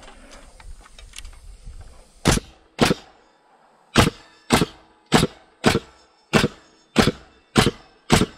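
Porter-Cable pneumatic nailer driving nails into a timber beam: ten sharp shots, the first about two seconds in, then a quick run at roughly two a second.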